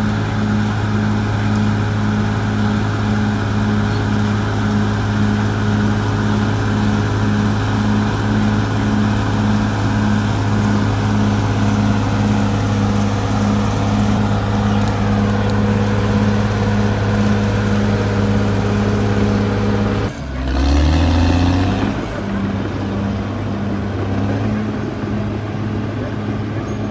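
Caterpillar D6R XL bulldozer's diesel engine running steadily, a low drone that pulses about twice a second. About twenty seconds in, the sound breaks off abruptly and a short rising-and-falling tone follows before the steady engine sound resumes.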